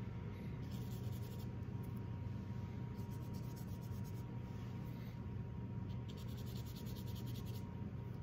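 Bristle brush scrubbing on a coarse linen canvas in three short bouts, wiping paint out of the brown toned ground, over a steady low hum.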